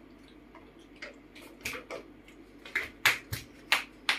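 Irregular sharp taps and clicks, a few at first and then coming faster and louder from about a second and a half in.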